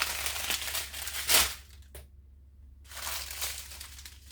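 Small plastic bags of diamond-painting drills crinkling as they are handled and sorted, with a louder crinkle about a second in and a brief pause near the middle.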